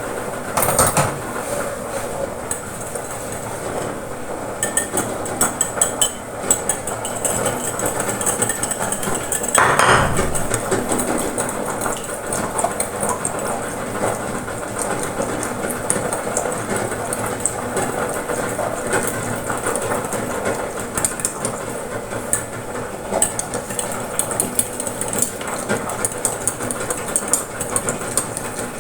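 Kitchen clatter: dishes and utensils clinking and knocking in many short clicks over a steady background noise, with one louder clatter about ten seconds in.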